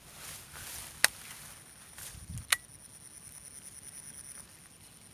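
Two sharp clicks about a second and a half apart over a steady high-pitched whine.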